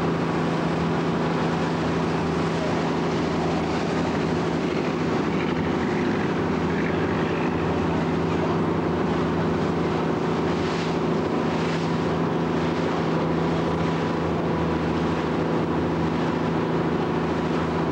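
Motorboat engine running at a steady, unchanging pitch while the boat is under way, over a steady rushing of water.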